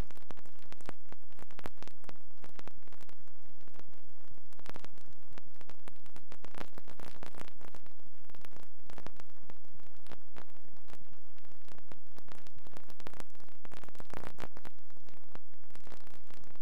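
Steady static-like hiss with dense, irregular crackling.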